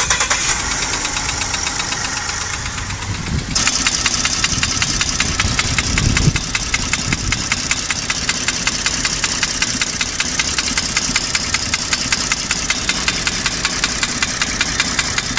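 Ford F-150's 3.5-litre V6 running with a loud, dry, rapid knock from the lower right rear side of the engine, which gets louder about three and a half seconds in. The knock comes from a piston skirt broken off by hard revving while the engine was cold.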